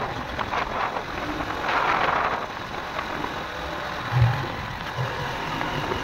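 Small motorcycle riding along a rough gravel road: the engine runs under a steady rushing hiss of wind and tyres on loose gravel, with a short low thump about four seconds in as it goes over a bump.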